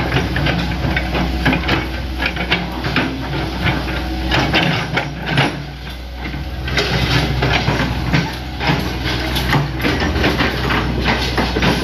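Hitachi Zaxis 100 excavator's diesel engine running steadily, with frequent short knocks and clatters over it.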